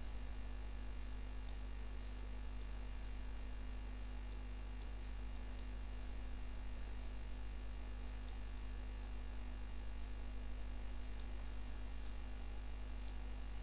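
Steady electrical mains hum with a faint hiss on the recording. A few faint short ticks come through now and then.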